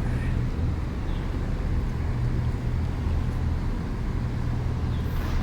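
Steady low engine drone with a constant hum, over an even background rumble.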